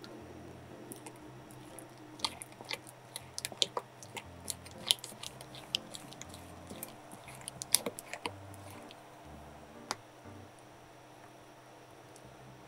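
A spatula folding thick chocolate cream-cheese batter in a glass bowl: wet squishing with many sharp clicks and ticks as it strikes and scrapes the glass, busiest in the middle and thinning out near the end.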